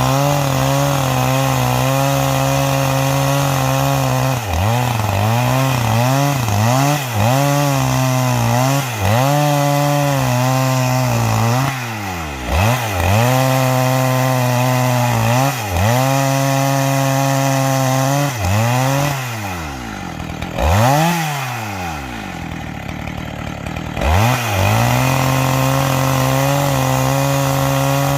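Two-stroke chainsaw with a square-ground chain ripping along the grain of a log. The engine runs at high revs, its pitch dipping again and again as the chain bites, then recovering. About twenty seconds in it drops to a lower, quieter speed for a few seconds, then revs back up.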